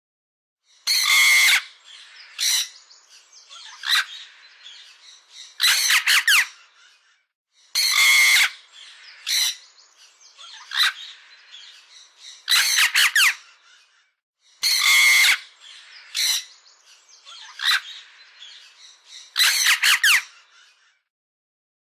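Harsh bird calls: one loud call followed by a run of fainter ones, the same sequence heard three times, about seven seconds apart.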